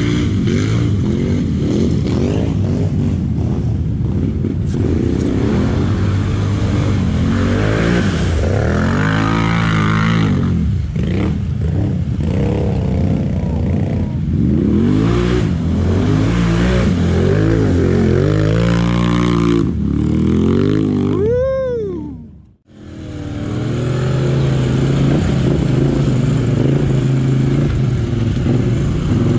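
Quad bike (ATV) engines revving up and down as the quads splash through deep muddy water, the pitch rising and falling repeatedly. About two-thirds of the way in, one rising-and-falling whine ends in a brief dropout, after which an engine runs more steadily.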